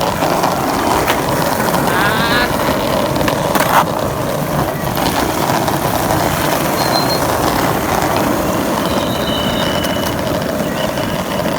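Skateboard wheels rolling on pavement in a steady rumble, with a couple of sharp clacks from the boards.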